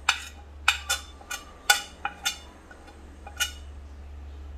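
A metal spoon clinks and scrapes against a dinner plate as spice powder is pushed off it: about eight sharp, irregular clinks, the last about three and a half seconds in, over a steady low hum.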